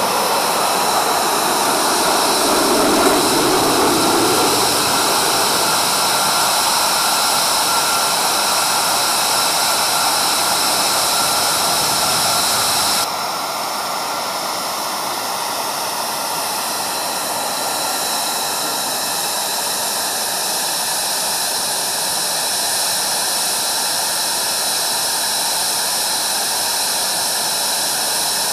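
F-22 Raptor's twin Pratt & Whitney F119 turbofans running loud in flight overhead: a continuous jet noise with a steady high whine. A little under halfway through, the sound changes abruptly and drops slightly in level, and a slow falling sweep runs through its tone afterwards.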